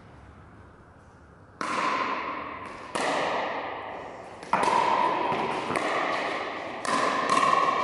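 Pickleball paddles striking a plastic ball in a rally: four sharp pocks, the first about one and a half seconds in, with lighter clicks between. Each hit echoes on in a large hall.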